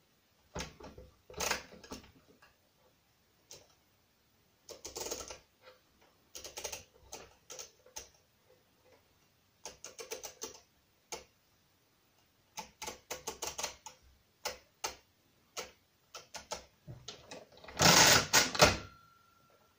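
Brunsviga pinwheel mechanical calculator being worked by hand: short clusters of sharp ratcheting clicks as its setting levers are moved into place, then a longer, louder clatter about a second before the end as the machine is operated at the crank and carriage.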